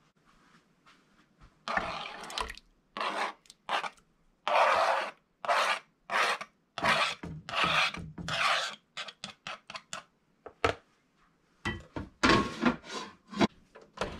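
Knife blade scraping repeatedly across a plastic cutting board, pushing peeled tomatoes off into a pan: a string of irregular short scrapes, starting about two seconds in.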